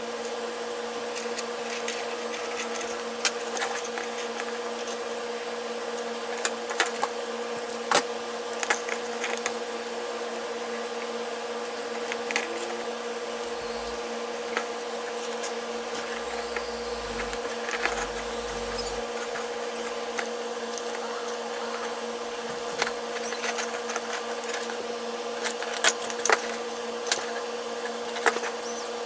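Steady mechanical hum at a constant pitch, with scattered sharp clicks and taps throughout and a few dull low thumps partway through.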